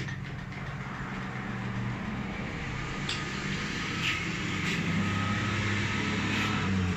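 Steady low machinery drone, its pitch shifting slightly, with a few faint clicks of small metal pump parts being handled.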